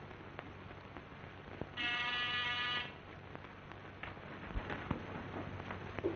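An electric buzzer sounds once, a steady buzz lasting about a second, about two seconds in. Faint scattered clicks of an old optical film soundtrack run around it.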